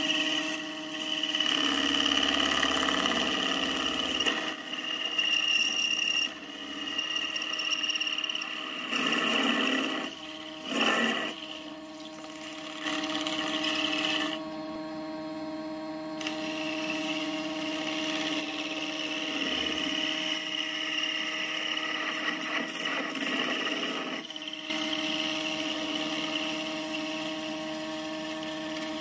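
Derbyshire Model A watchmaker's lathe running steadily with a motor whine while a carbide-insert tool cuts a steel part, the scratchy cutting noise coming and going.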